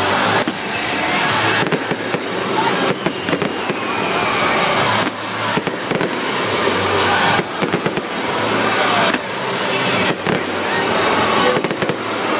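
Fireworks display: aerial shells bursting in quick succession, one bang running into the next with hardly a pause.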